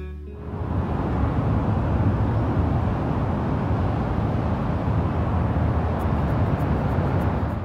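Steady rushing noise of wind and ocean surf. It fades in over the first second and cuts off abruptly at the end.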